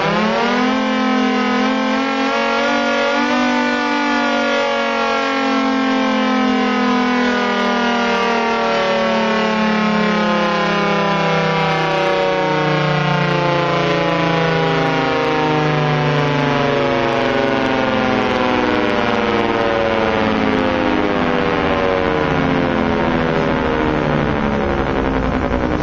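Federal Signal Thunderbolt tornado siren winding down: its wail climbs briefly about a second in, then falls slowly and steadily in pitch.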